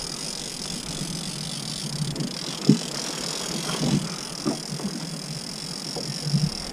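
Small aluminium fishing boat under way at trolling speed: a steady hiss with a high whine, and irregular light knocks against the hull, the loudest a little under three seconds in.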